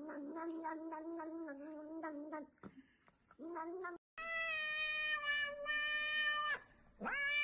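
Cats vocalizing while eating. First comes a wavering, mumbling meow with small clicks over it. After a short pause there is a brief call, then a long, steady, high-pitched meow, and another call begins near the end.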